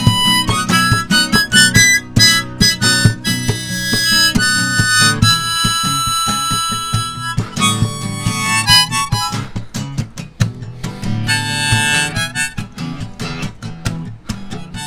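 Harmonica playing a solo over a strummed acoustic guitar, mixing runs of quick notes with some held ones.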